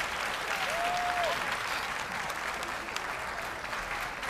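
Audience applauding steadily. A short whistle-like tone rises, holds and falls about a second in.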